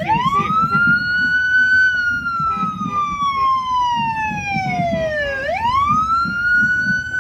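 Emergency vehicle siren sounding a slow wail. The pitch climbs quickly to a peak about two seconds in, falls slowly over the next three seconds, then climbs again near the end.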